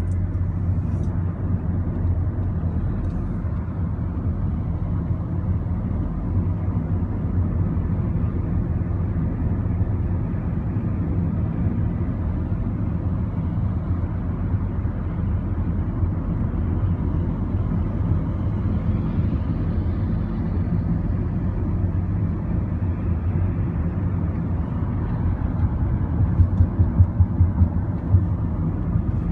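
Steady low rumble of a running road vehicle, with a few louder low bumps near the end.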